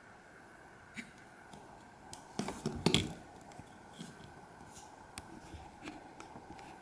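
Scattered faint clicks and a short burst of clattering handling noise about two and a half seconds in, over a low steady hiss; no ringtone is sounding.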